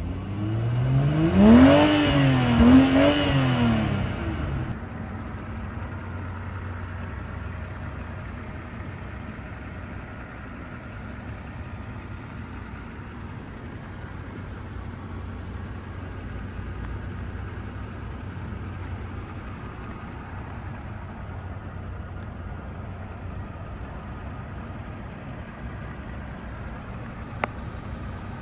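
2021 BMW X6 engine revved twice in quick succession, its pitch rising and falling each time, then settling into a steady idle.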